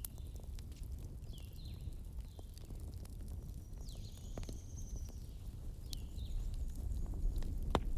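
Wood fire crackling, with scattered sharp pops over a steady low rumble and one loud pop near the end. A few short high chirps falling in pitch come through now and then.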